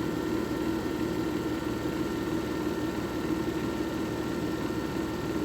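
JFJ Easy Pro disc repair machine running steadily, its motor spinning a buffing pad against a game disc coated in polishing compound: an even hum with a few faint high tones.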